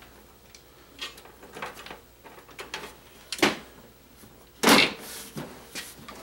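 Side panel of a desktop computer case being lowered onto the case and shifted into place: scattered clicks and scrapes, a sharp knock about three and a half seconds in and a louder clunk just before five seconds.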